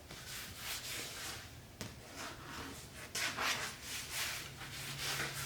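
A hand rubbing sticky conditioner into dry vinyl seat upholstery: a run of repeated swishing rubbing strokes, loudest about three seconds in, with one short click a little before two seconds.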